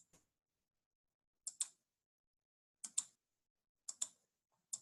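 Computer mouse button clicking: four pairs of sharp clicks, each a press and release, about one pair a second.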